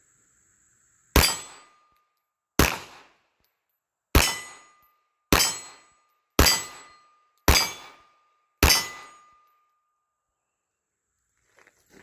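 Seven shots from a Taurus Spectrum .380 ACP micro pistol, fired singly about one to one and a half seconds apart, several followed by the brief ring of a struck steel target.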